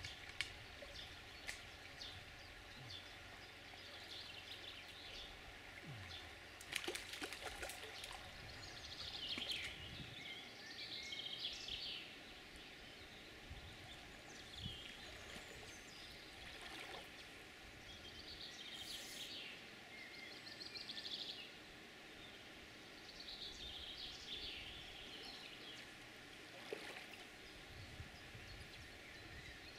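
Birdsong from the riverside trees, short phrases coming every few seconds, over the faint steady rush of a small river.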